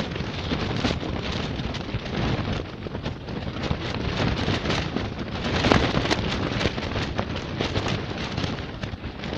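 Strong gusty wind buffeting a thin fabric ice-fishing tent: the tent walls flap and snap over a steady rumble of wind on the microphone, with a stronger gust about six seconds in.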